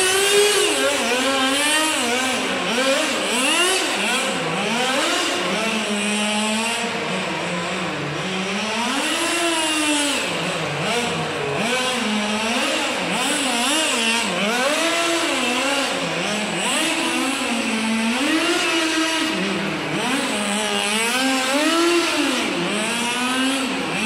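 Kyosho FW-05R nitro RC car's small glow engine revving up and down over and over as the car is driven and drifted, in an underground car park. Its pitch swings up and falls back every second or two.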